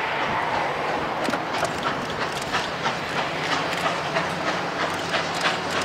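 Nickel Plate Road 765 steam locomotive hauling a passenger train with two diesel locomotives behind it, approaching at speed: a steady running noise with a string of sharp, irregular clicks and clacks from the train on the track.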